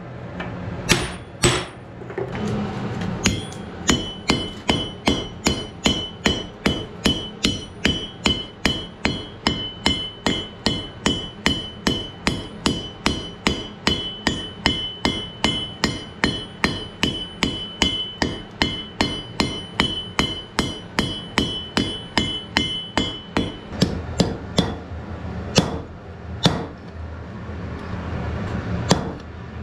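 Hand hammer forging red-hot wrought iron on an anvil: a steady run of blows, about two to three a second, with the anvil ringing on a high note under each strike. The ringing stops a few seconds before the end, and the last blows come more spaced.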